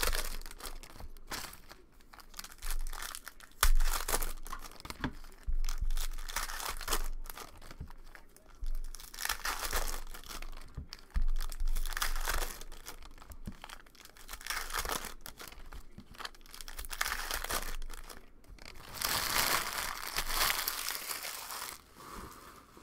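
Silver foil wrapper of a 2019 Panini Prizm football card pack being torn open and crinkled by hand, in irregular rustling bursts with a few light bumps, loudest shortly before the end.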